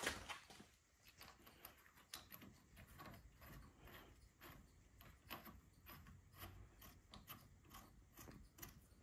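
Faint scattered metal clicks and clinks of a steel belt-tensioner arm and its bolts and collars being handled and fitted by hand on a lathe.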